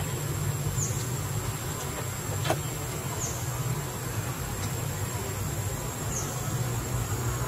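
Outdoor ambience: a steady high-pitched insect drone that dips briefly in pitch every two to three seconds, over a steady low rumble. A single short click comes about two and a half seconds in.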